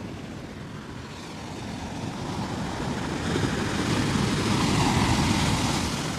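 Ocean surf on a sandy beach: a wave breaking and rushing up the shore, the rush of water building to its loudest about four to five seconds in and then easing.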